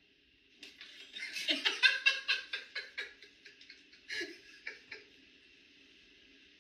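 A person laughing in quick breathy bursts, about four or five a second, that fade out around three seconds in. A few short chuckles follow about a second later.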